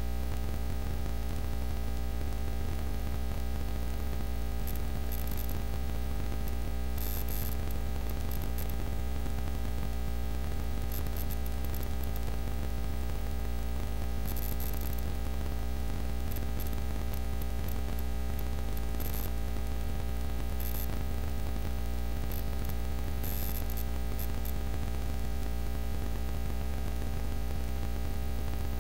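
Steady electrical mains hum and static hiss from the recording, with short crackles of interference every few seconds.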